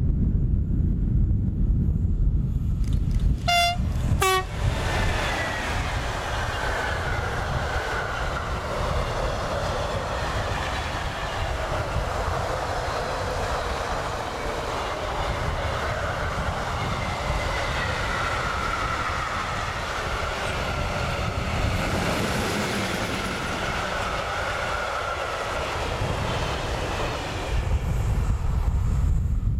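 Freight train passing: the locomotive's horn gives two short notes, high then low, a few seconds in. Then come the steady wheel-and-rail noise of a long rake of car-carrier wagons, with some metallic squeal, for about twenty seconds, fading out near the end.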